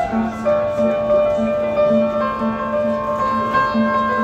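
Instrumental background music: slow melody notes held over a low note that pulses about three times a second.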